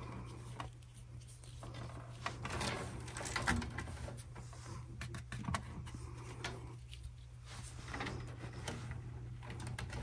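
Low steady hum from the furnace, with scattered small clicks and rustling as wiring is handled at the furnace control board.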